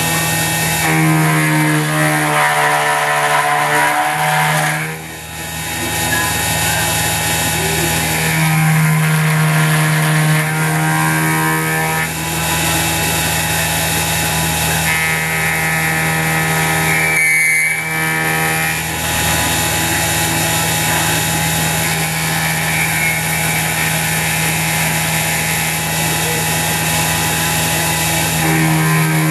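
CNC-converted X2 mini mill machining 6061 aluminium: the spindle motor hums steadily while the end mill cuts, and a pitched motor whine rises and falls with each pass of the table, dropping briefly about five seconds in and again around seventeen seconds.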